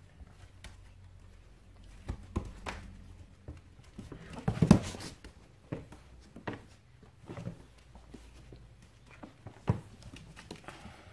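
Border collie puppies play-fighting on bare wooden floorboards: scattered scrabbling of paws and bumps of small bodies on the boards, loudest in a burst a little before halfway and with another sharp knock near the end.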